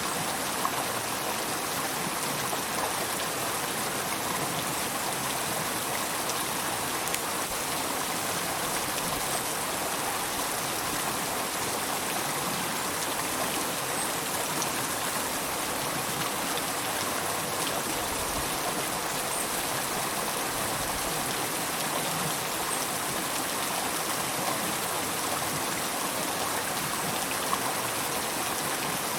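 A river flowing steadily, a continuous even rush of water with small splashes and drips now and then.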